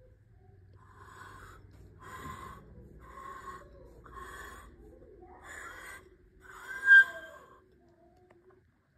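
Breathy puffs from a person close to the microphone, about one a second, six in all; the last, near seven seconds in, is the loudest and has a short high note in it.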